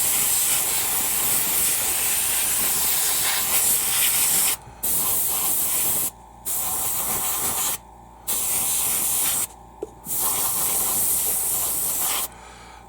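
Airbrush spraying paint in a steady hiss, cut off by several short releases of the trigger in the second half.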